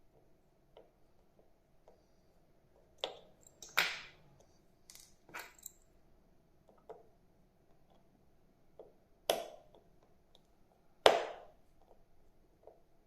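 Small screwdriver working the tiny case-back screws of a Casio G-Shock watch: scattered light clicks and taps of metal on the watch case, with a few sharper knocks, the loudest about eleven seconds in.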